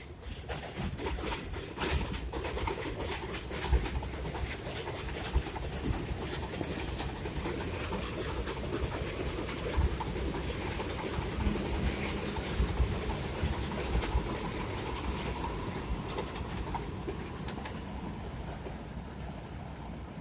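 R62A subway train running along the track: a steady rumble with scattered clicks from the wheels over the rail joints, easing off near the end.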